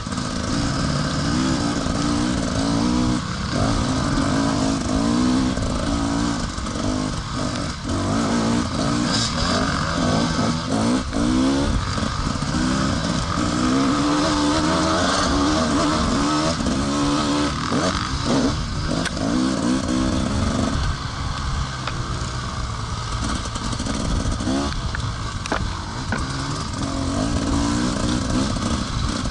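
Enduro motorcycle engine being ridden, its pitch rising and falling again and again with the throttle, over a steady rushing noise, with scattered short knocks and clatter.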